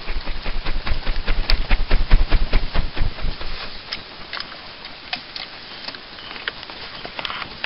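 A twig-stove panel beaten rapidly as a fan over smouldering charcoal embers, several whooshing strokes a second with gusts of air buffeting the microphone, to push the embers into flame. About three seconds in the fanning stops and only scattered faint clicks and crackles remain.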